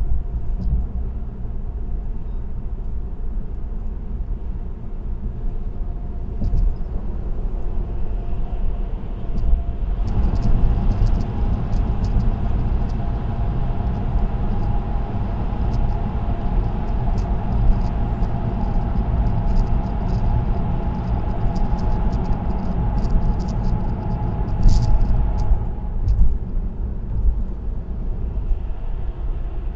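Car driving at expressway speed: steady tyre and road rumble heard from inside the car. From about ten seconds in it grows louder, with a steady hum, and it eases back a few seconds before the end.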